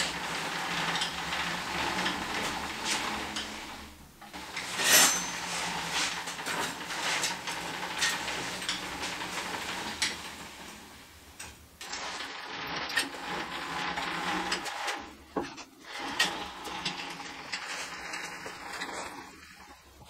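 The steel carriage of a homemade swingblade sawmill being rolled along its steel rails, rattling and clanking, with frequent short knocks and one sharper knock about five seconds in.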